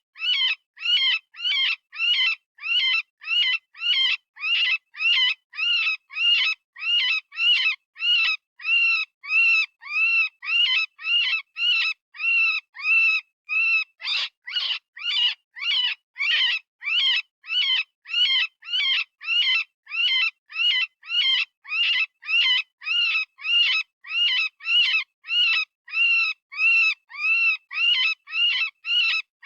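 Synthesized rabbit distress call, the kind used as a predator-hunting lure: short, high, wavering screams repeated about twice a second without a break.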